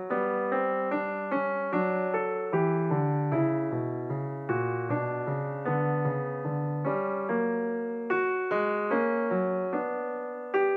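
Background piano music: a slow, gentle piano piece of evenly paced notes, each decaying before the next.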